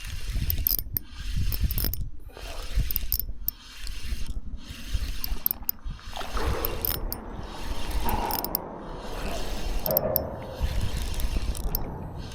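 Fishing reel being wound in against a hooked fish, its handle cranked in repeated bursts about a second long with short breaks between them.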